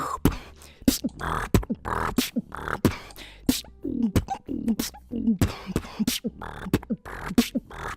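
Vocal beatboxing: a fast routine of mouth-made kick, snare and hi-hat hits with pitched, bass-like vocal sweeps woven in around the middle.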